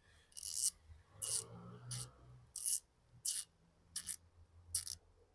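Ratchet mechanism being worked back and forth by hand, a short rasp of the pawl over the fine-toothed gear with each of seven strokes, about one every 0.7 s.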